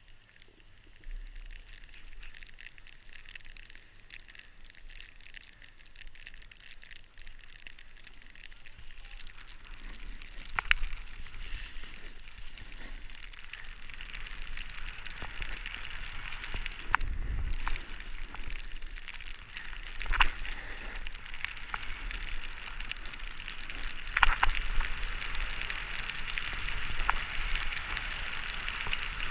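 Snowboard sliding and carving down a snowy slope: a scraping hiss of the board on the snow that builds about ten seconds in as it gathers speed. Scattered sharp clicks and knocks sit on top of it.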